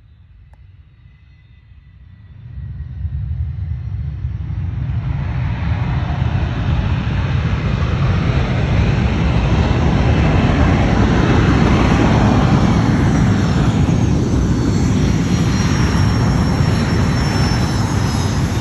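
A twin-engine business jet's turbofan engines running as it rolls down the runway toward and past, swelling from faint to loud within the first few seconds and then holding a steady loud roar with a high engine whine over it.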